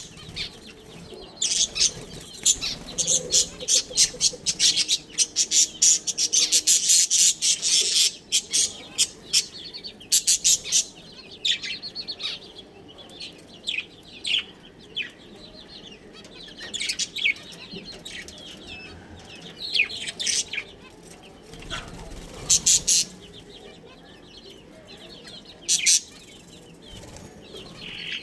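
Budgerigars chirping and chattering in quick, sharp calls, with a dense run of chatter near the start and then scattered bursts of chirps.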